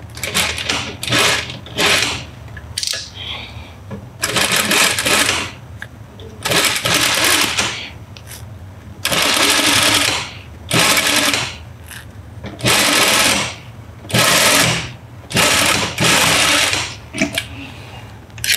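Industrial lockstitch sewing machine running in about a dozen short bursts, each half a second to a second and a half, stopping and starting as a curved edge of terry towel and batting is stitched around. A steady low hum runs underneath.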